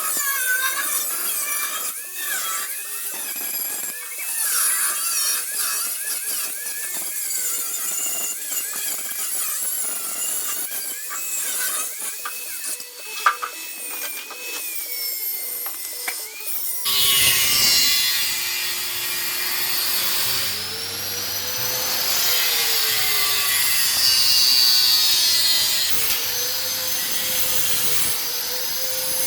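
A handheld power tool grinding or cutting the scooter's steel body panels. A high whine wavers in pitch as the tool is loaded. About 17 seconds in it switches abruptly to a harsher, fuller grinding sound whose pitch sags and recovers under load.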